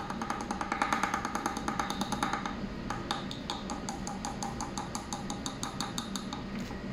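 Rapid, even metallic tapping, roughly eight to ten taps a second, as a bolt is knocked against a knock sensor to make it generate a voltage for a test.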